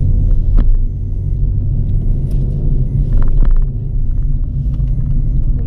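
Steady low rumble of road and engine noise inside a moving Suzuki car's cabin, with a few light clicks.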